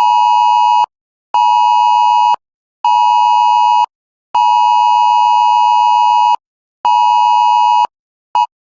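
Wireless Emergency Alert attention tone sounding from a phone: a loud two-tone beep in the alert's long-short-short cadence, two seconds on, then one-second beeps with half-second gaps, repeating. It signals an incoming emergency alert. The last beep cuts off abruptly near the end.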